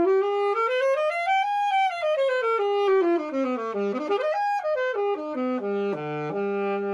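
Yamaha YAS-875 alto saxophone playing an unaccompanied melody: notes climb step by step to a high note and step back down, then a quicker phrase ends on a held low note.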